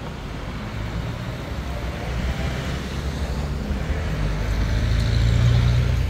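Low engine rumble with a hiss over it, growing louder toward the end and easing off just before it stops.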